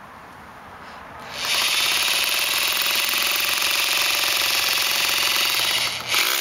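Corded hammer drill boring into a concrete slab, starting about a second and a half in and then hammering steadily with a very fast, even rattle. It stops for a moment near the end and starts again.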